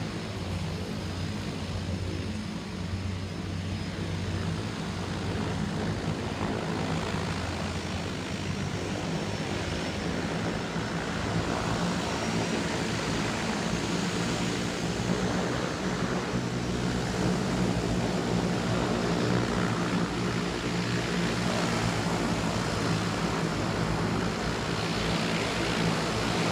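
Seaplane's propeller engine droning steadily as it flies low over the water and comes down on it, growing somewhat louder in the second half.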